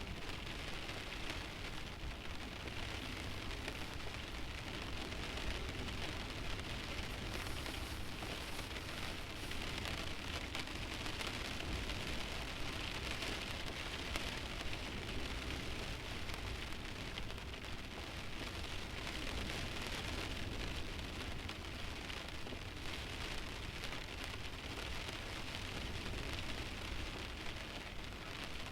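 Light rain pattering steadily on the windshield of a stationary car, with no engine or road noise.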